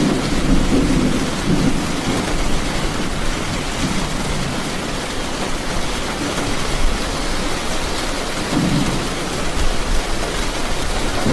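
Steady heavy rain falling, with low rumbles of thunder in the first couple of seconds and again briefly near the end.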